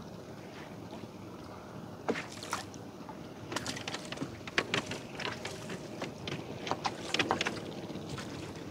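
A fishing net being handled with a fish tangled in it: a run of short clicks and taps starting about two seconds in, over a steady low hum.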